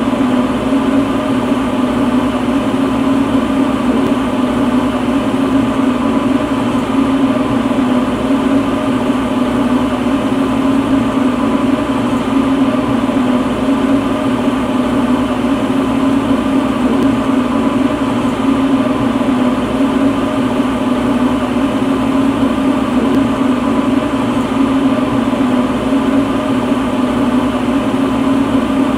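Gas torch flame burning steadily during lampworking: a constant roar with a low hum that does not change.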